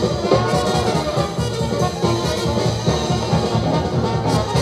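Jazz-style music with brass, played from a vinyl record on a turntable through Abramtek X50 powered bookshelf speakers.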